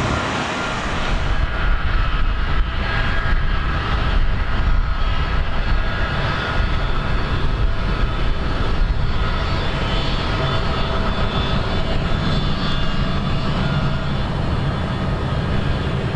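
Boeing 757 freighter's twin jet engines running at taxi power: a steady rumble with a faint whine, the airliner rolling slowly along the runway. The high hiss thins out about a second in.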